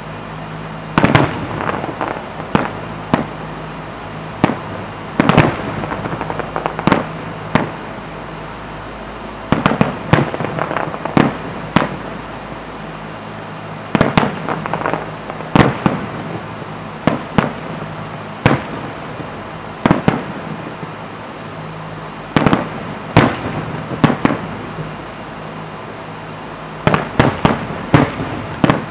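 Aerial fireworks shells bursting in a display: repeated sharp bangs, often several in quick succession, each trailing off in a brief echo, over a steady low hum.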